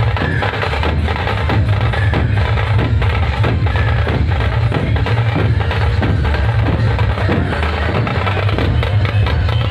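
Dhol-tasha troupe playing: large barrel dhol drums beaten in a fast, continuous rhythm, with sharp, higher-pitched strikes over the deep booming beats.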